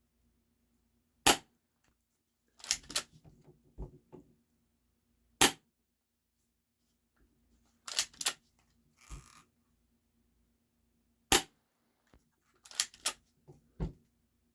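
Spring-powered airsoft pistol, a Game Face P311 1911 replica, fired three times, each shot a single sharp snap. Between shots the slide is racked to cock the spring, a quick cluster of clicks and rattles.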